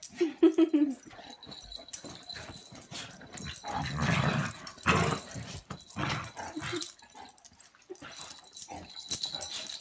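Two dogs play-fighting: a short pitched growl right at the start, then rougher growling about four seconds in, amid scuffling and knocks of paws on bedding.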